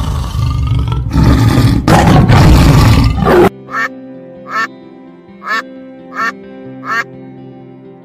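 A tiger growling loudly in three long, rough stretches. It cuts off suddenly, followed by a mallard duck quacking five times, short calls a little under a second apart, over soft background music with held notes.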